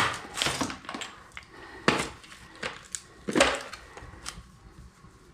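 Small hard objects being handled and moved: an irregular run of clinks, knocks and short scraping rustles, the loudest near the start and about two and three and a half seconds in.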